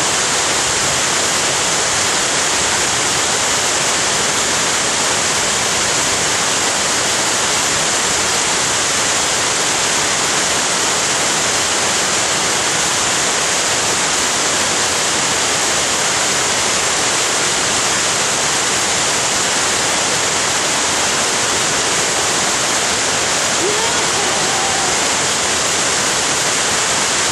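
Waterfall rushing: a steady, loud, even wash of falling water that does not change.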